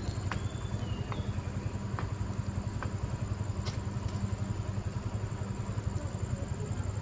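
Steady low mechanical hum with a fast, even pulse, like an engine idling nearby, under a faint steady high whine. A few short high chirps sound in the first second or so.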